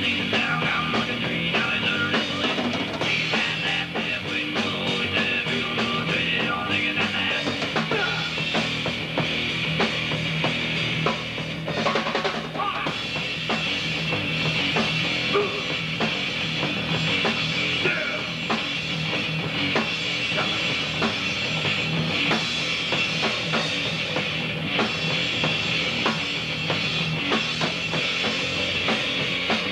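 Hardcore punk band playing live, with electric guitar, bass guitar and drum kit together and dense, fast drum hits.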